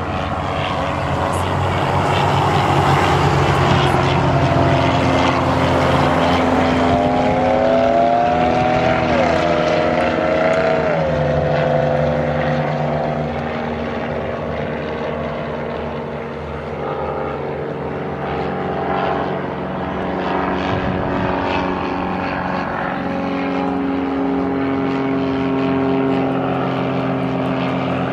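Propeller aircraft engines running at full power, several planes at once, as light aircraft depart. About ten seconds in, one engine's pitch falls as it passes by.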